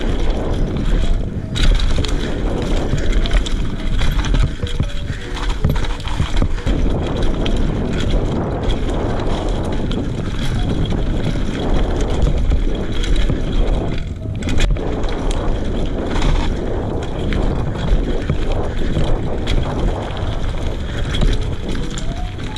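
Fuji Addy 1.5 mountain bike running fast down a dirt forest trail: steady tyre noise on dirt and stones, with the bike rattling and knocking over bumps throughout.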